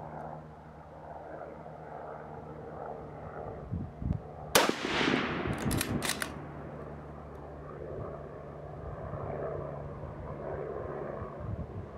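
A single .303 rifle shot from a sporterized 1943 Lee Enfield No. 4 Mk I about four and a half seconds in, with an echo trailing off. About a second later come a few quick metallic clicks as the bolt is worked to chamber the next round.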